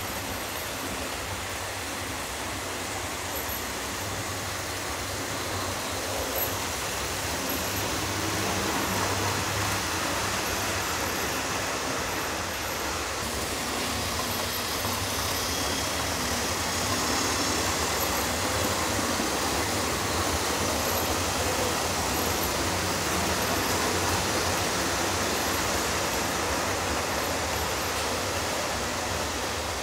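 Model train running on the layout's track: a steady whirring, rolling noise of wheels on rail and motor, growing a little louder partway through.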